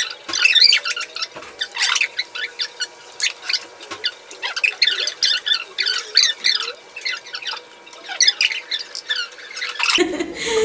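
Sped-up audio from a fast-forwarded stretch: voices and table noises turned into rapid, high-pitched squeaky chirping chatter. It cuts off abruptly about ten seconds in, where normal-pitch talk returns.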